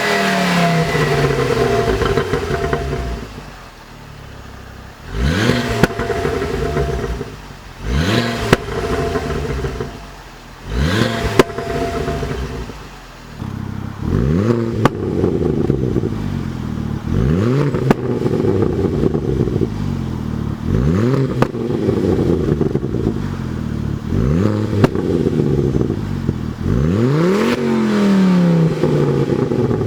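Ford Focus ST Mk2 225's turbocharged 2.5-litre five-cylinder engine revved again and again through its exhaust, the pitch rising quickly about nine times and falling back or holding between.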